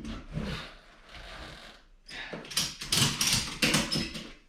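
Metal parts of a snowmobile skid frame and its jack clicking and rattling as the rear suspension is worked up into place. It begins with a few low knocks and turns to a dense clatter about two seconds in, stopping just before the end.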